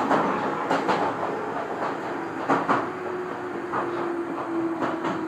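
Train wheels clicking irregularly over rail joints and points while running along a station platform, heard from the driver's cab. A steady whining tone joins about two and a half seconds in.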